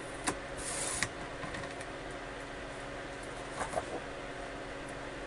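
A paper trimmer's blade drawn through a sheet of cardstock in one short swipe, cutting off its zip strip, with a click just before and after. A couple of small knocks of paper and trimmer being handled follow later.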